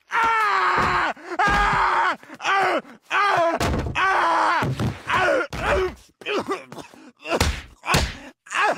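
A cartoon man's exaggerated cries of pain: a long string of drawn-out wails and groans, each falling in pitch, one after another with short breaths between. A few thuds fall in among the cries.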